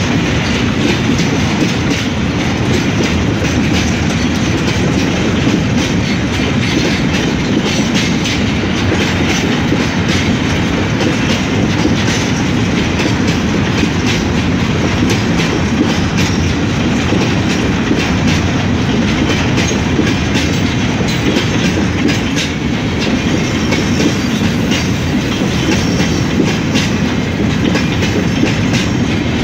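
Freight train's boxcars and grain hopper cars rolling past, a loud, steady rumble with the wheels clicking continually over the rail joints.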